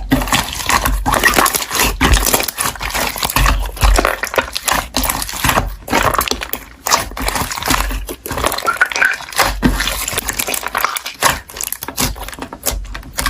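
Toy slime being squished and pressed by hand: a steady, irregular run of wet crackles and small clicking pops.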